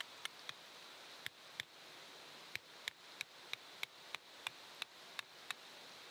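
A run of sharp, short clicks: a few scattered ones at first, then about ten evenly spaced at roughly three a second, stopping about half a second before the end. Underneath is a steady hiss.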